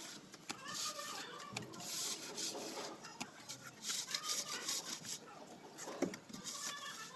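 Plastering tool scraping across a freshly plastered wall in repeated strokes, roughly one a second, with a few light clicks.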